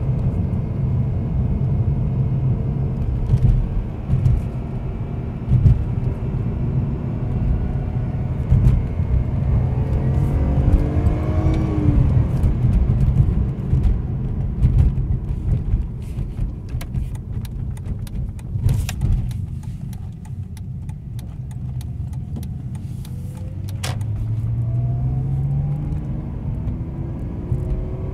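BMW E46's M54 straight-six engine pulling hard at around 4,000 rpm, heard from inside the cabin, its pitch rising as the revs climb about a third of the way in and again near the end. It is being held at high revs as an "Italian tune-up" meant to free piston rings that the owner believes are stuck and burning oil. Scattered sharp clicks come through about two-thirds of the way in.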